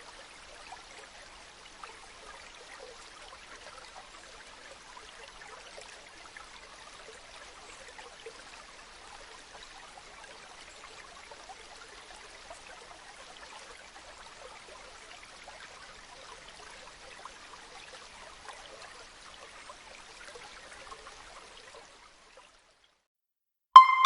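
Rainwater running and trickling steadily, cutting off about two seconds before the end. Right at the end a loud musical note begins.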